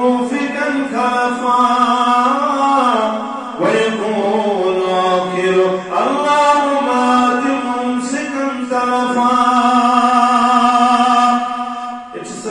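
A man's voice chanting a dua (Islamic supplication) in a slow, melodic style, holding long notes and trailing off near the end.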